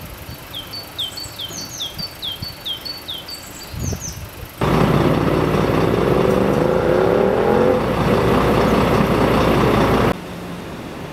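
A small bird chirping in quick series of short descending notes over quiet outdoor background. About four and a half seconds in, a loud, steady vehicle engine noise starts abruptly and covers everything until it cuts off shortly before the end.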